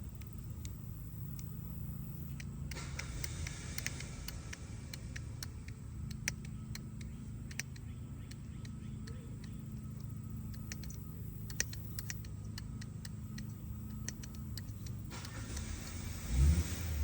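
Hand-pumped hydraulic wire crimper being worked on a battery cable terminal: scattered sharp clicks and metal ticks over a low steady hum, with one heavy thump near the end.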